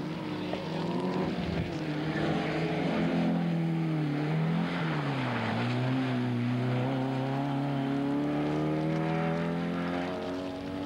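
Rally car engine running hard at high revs. The pitch wavers, drops about four to five seconds in, then climbs slowly and steadily as the car accelerates.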